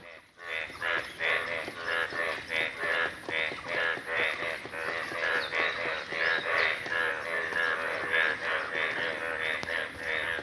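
A rapid, steady series of short animal calls, about three a second.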